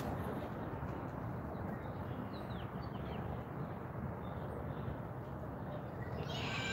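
Outdoor ambience: a steady low background rush with a few faint bird chirps a couple of seconds in, and a louder bird call near the end.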